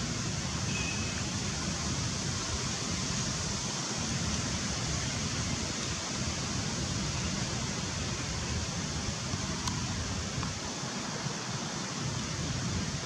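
Steady rushing outdoor noise with a low, fluctuating rumble underneath and no distinct events.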